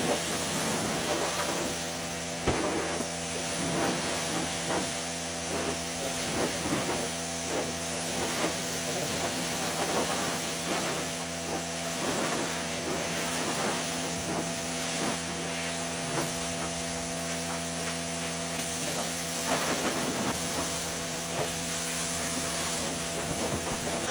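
A steady hiss of a spraying or cleaning machine running, with a low hum and scattered small scrapes and knocks.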